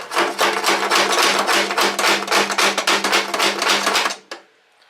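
Small hammer tapping rapidly on steel, about eight quick blows a second, driving a roll pin into the snow thrower differential's axle; the struck metal rings faintly under the blows. The tapping stops about four seconds in, with one last tap just after.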